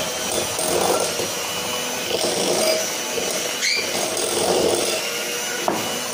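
Electric hand mixer running steadily on low speed, its beaters whipping eggs and sugar in a glass bowl.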